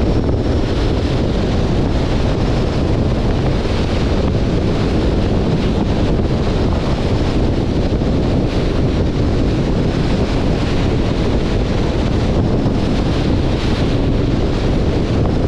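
Wind rushing over the microphone of a camera on a moving car: a steady, loud, unbroken rumble.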